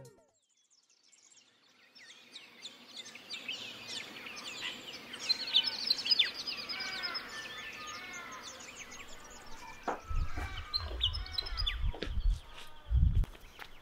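Songbirds chirping and calling, many short rising and falling notes overlapping, starting after a moment of near silence. A few low thumps and sharp clicks come in near the end.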